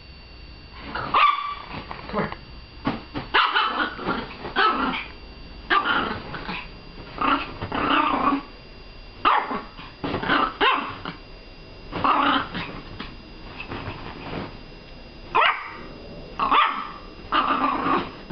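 Yorkshire terrier growling and barking in short, loud bursts about once a second, worked up and frantic, with a brief lull about two-thirds through.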